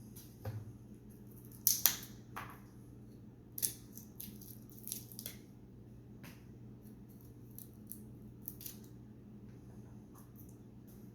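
Irregular short clicks and snips of kitchen utensils being handled during food prep, the loudest about two seconds in and near four seconds, over a steady low hum.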